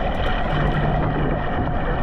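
Surf water rushing and sloshing right at a camera held at the water surface as a swimmer pushes through the waves: a loud, steady wash of water noise.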